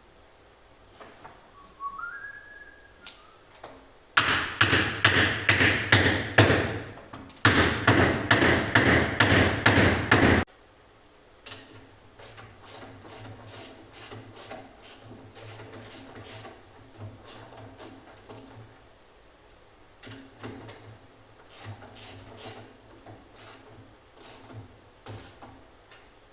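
Two fast runs of hammer blows on the metal chassis parts, about three a second, followed by quieter clicks and knocks of steel parts being handled. A short rising whistle comes just before the hammering.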